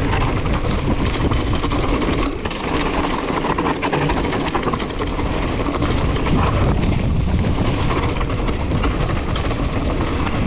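Mountain bike being ridden over rough trail ground: a steady, dense rumble and rattle of the tyres and bike.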